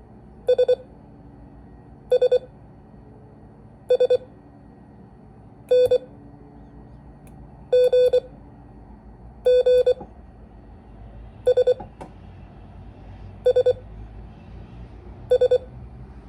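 Morse code sidetone beeps keyed on a paddle, sending single letters of the S, N, C, G practice drill. Each letter is a quick cluster of dots and dashes, with gaps of about two seconds between letters for copying practice.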